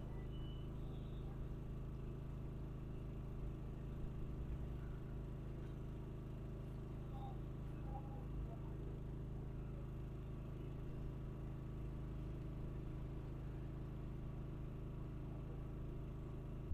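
A steady low mechanical hum, an engine-like drone made of several even tones over a low rumble.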